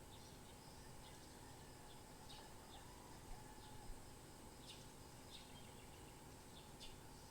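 Faint, short bird chirps, scattered about once a second, over a steady background hiss.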